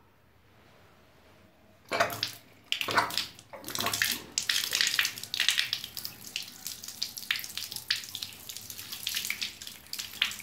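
Tap water pouring and splashing onto a smartphone held in the stream, starting suddenly about two seconds in and then going on unevenly as the phone is turned under the flow.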